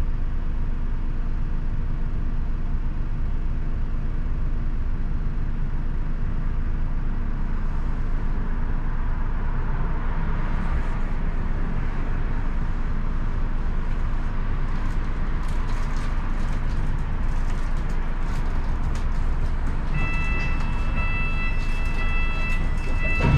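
Steady engine and road rumble heard inside a London double-decker bus. About twenty seconds in, a repeated high beeping tone starts, the bus's door warning beeps.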